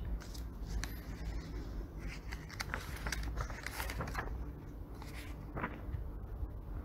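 Low steady room hum with scattered faint rustles and small clicks, busiest around the middle.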